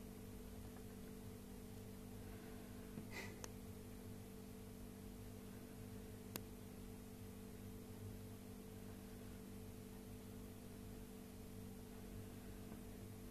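Very quiet room tone with a steady low hum, a couple of faint rustles about three seconds in and a single sharp click about six seconds in.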